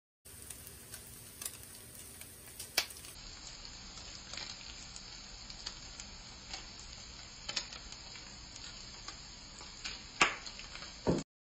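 Diced Spam sizzling in a frying pan: a steady hiss with scattered sharp pops and clicks, the loudest about ten seconds in, then a sudden cut-off near the end.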